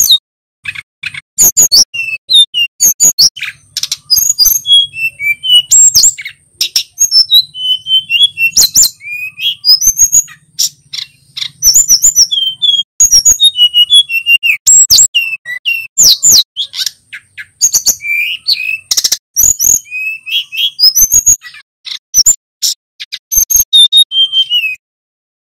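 Male sikatan gunung (mountain flycatcher) singing hard: a fast, varied, loud run of high whistles and slurred notes mixed with sharp clicking chips, stopping about a second before the end.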